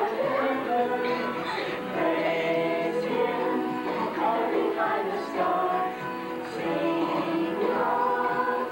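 A choir singing a song together, with musical backing.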